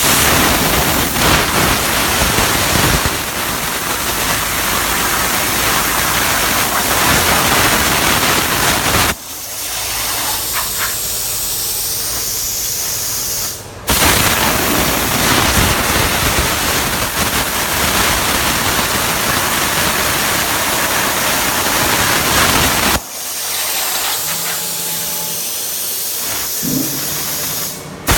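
CNC plasma cutter torch hissing loudly and steadily as it cuts metal. Twice, about 9 seconds and 23 seconds in, the lower part of the sound drops out for several seconds and only a thinner, high hiss is left.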